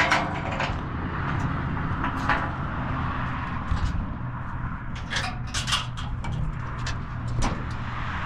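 Sheet-metal side panels of a pickup truck's cargo rack being swung open and handled, giving several metallic clanks and knocks: one right at the start, one about two seconds in, a cluster around five to six seconds in and one more near the end, over a steady low rumble.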